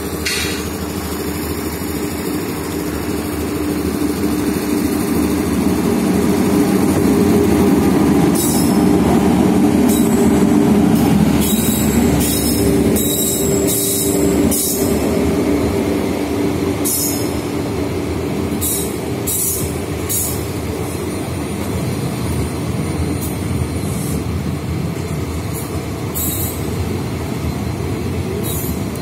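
Passenger express train hauled by an electric locomotive passing close by on the adjacent track, with a dense rumble and steady hum that grow loudest about eight to eleven seconds in. Its coaches then roll past with continuous wheel rumble and repeated sharp clicks from the wheels.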